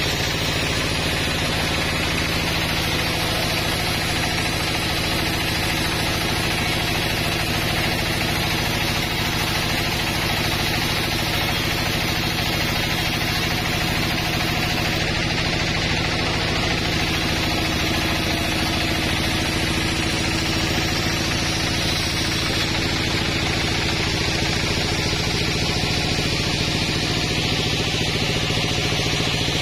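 Sawmill running steadily as its blade rips a log into boards, a constant machine drone with no pauses or changes.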